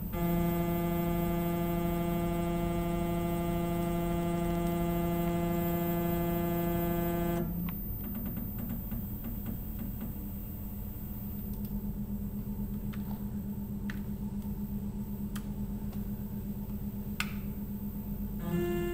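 Tormach PCNC 1100 mill's axis drive motors whining steadily as the table is jogged, stopping abruptly about seven seconds in. A low steady hum follows, with a few light clicks.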